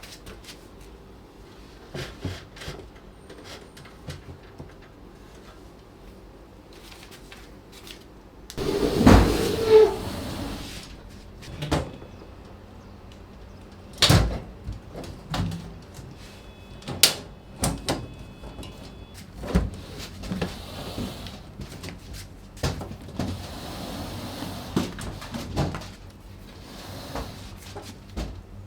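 Scattered knocks and clicks of things being handled and set down, like doors or cupboards being opened and closed, with a louder noisy stretch about nine seconds in and a sharp knock about fourteen seconds in.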